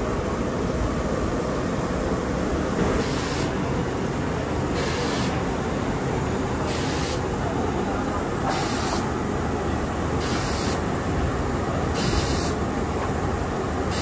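Steady workshop noise, with a short hiss repeating at a regular pace about every two seconds from about three seconds in.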